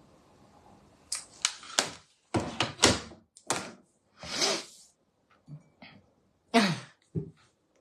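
A quick run of about a dozen knocks and clatters of hard objects being handled and set down, with a short scraping rustle in the middle.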